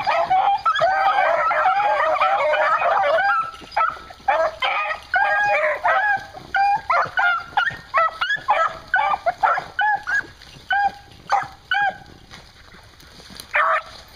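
A pack of beagles baying on a rabbit's scent during a hunt, many voices overlapping at first, then thinning to separate short barks from fewer dogs, with one last call near the end.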